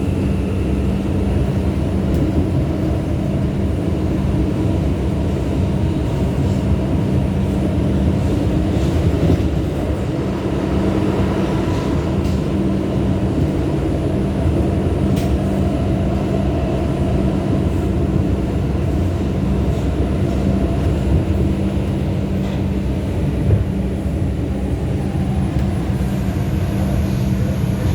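New York City subway 2 train running at speed between stations, heard from inside the car: a steady rumble of wheels and motors with a low hum, broken by a couple of sharp clicks.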